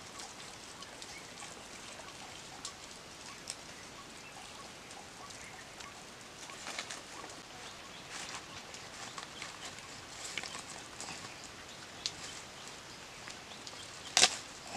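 Handling sounds of a whole fish being rubbed with spice paste and skewered on a bamboo stick over a banana leaf: scattered soft clicks and rustles of leaves, with one sharp crack near the end.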